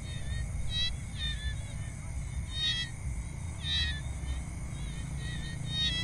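Jungle ambience: a steady high-pitched drone of insects such as crickets, with short animal chirps every second or so and a low rumble underneath.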